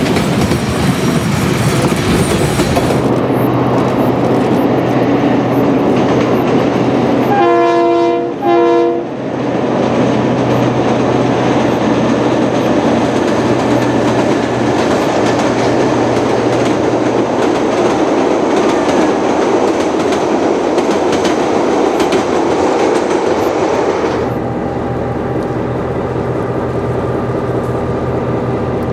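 Diesel-hauled passenger train running on the rails, with steady wheel clatter and engine rumble. A diesel locomotive horn sounds two short blasts about seven and a half seconds in. Near the end the sound changes to a lighter, steady diesel locomotive engine running.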